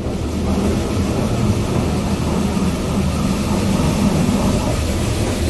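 Touchless car wash gantry blasting water over the car, heard from inside the cabin: a loud, steady rush of spray hitting the windshield and roof over a low rumble.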